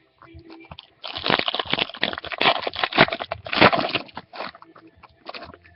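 Foil trading-card pack wrapper crinkling and tearing as it is opened, a dense crackle for about three seconds.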